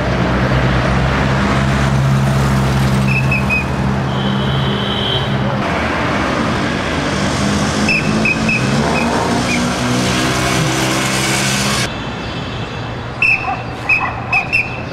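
A whistle blown in short sharp blasts, in three clusters of several quick toots, as an order to stop and not pass, over the steady hum of a motor vehicle engine that cuts off about twelve seconds in.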